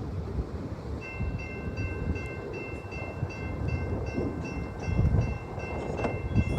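Low rumble of an approaching freight train, with a high ringing starting about a second in and repeating about three times a second, like a grade-crossing bell.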